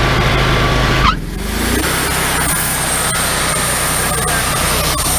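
Wood-Mizer LT40 hydraulic sawmill's gasoline engine running steadily. About a second in the sound changes abruptly: a short dip and a rising tone, then it runs on steady at a slightly different pitch.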